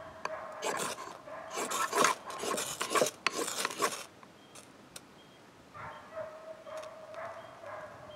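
Knife blade scraped hard down a ferrocerium rod in four quick bursts of harsh rasping over the first four seconds, showering sparks onto wood-shaving tinder. A quieter, steady tone follows from about six seconds in.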